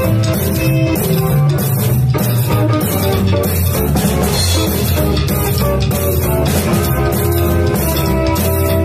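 Live rockabilly trio playing an instrumental passage: electric guitar over upright bass and a drum kit keeping a steady beat, with no singing.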